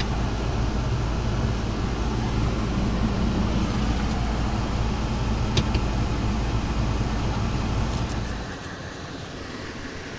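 A van's engine running steadily, with a low, even hum, then stopping about eight and a half seconds in.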